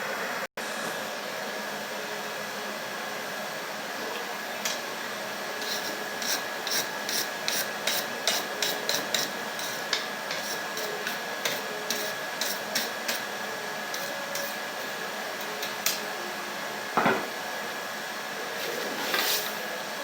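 Light hammer blows on a metal rod at the anvil, about three a second, curling it into a scroll, with a louder knock near the end. The forge's blower runs steadily underneath.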